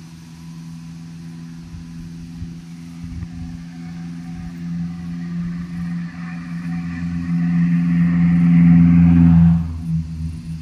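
Tyre and engine noise of a van on a concrete highway, growing steadily louder as it approaches and passes close by, then dropping off suddenly near the end. A steady low hum runs underneath throughout.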